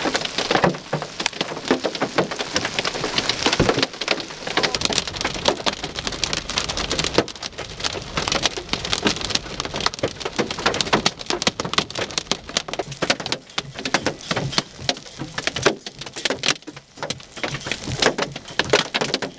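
Hail and heavy rain pelting down: a dense, irregular rattle of sharp hailstone strikes over a steady wash of rain.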